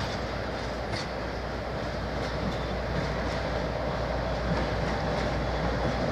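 A train rolling slowly along the track with a steady rumble, with faint high-pitched metallic squeaks roughly once a second, growing slightly louder.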